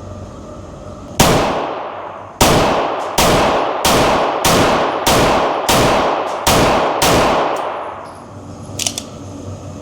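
Glock 19 9mm pistol fitted with a Radiant compensator firing about nine shots in an indoor range, with the shots ringing in the room. A single shot comes about a second in, then after a short pause a steady string of eight follows at roughly a shot and a half a second.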